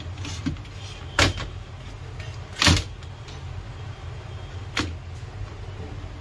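Plastic casing of a Compaq laptop being handled and prised open. Three sharp clicks and knocks come about a second in, near the middle (the loudest) and near five seconds, over a steady low hum.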